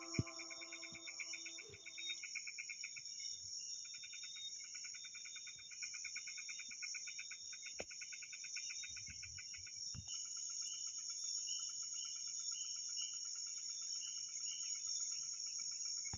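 Equatorial rainforest insect chorus: a steady high-pitched drone with fast, pulsing trills from other insects layered underneath, and a couple of faint ticks.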